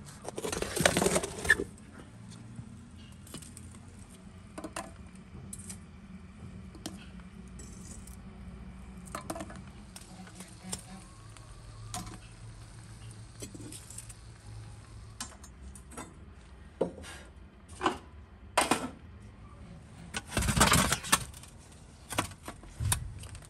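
Metal baking pans scraping and clanking on the floor of a wood-fired brick oven, once at the start and again about twenty seconds in, as bread is set in and taken out. Scattered sharp clicks come in between.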